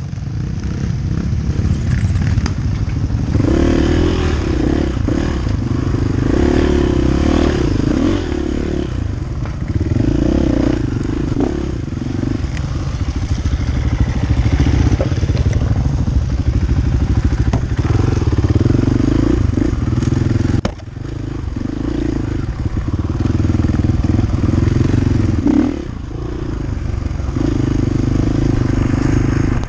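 Motorcycle engine running continuously, its note rising and falling with the throttle, with a brief drop in level about two-thirds of the way in.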